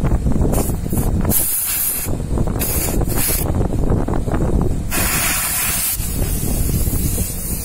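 Short spurts of R410A refrigerant hissing out of a split AC's suction service valve port as the gauge manifold's charging hose is screwed on, then one longer hiss of about a second that fades away. Under it is a steady low background noise.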